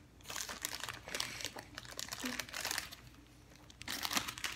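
Crinkly plastic snack bag rustling and crackling in irregular bursts as it is handled, with a lull about three seconds in before more crinkling.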